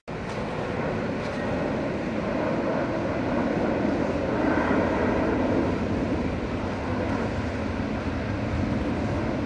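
DC-10 firefighting air tanker flying overhead, its jet engines making a steady rumble that grows a little louder around the middle.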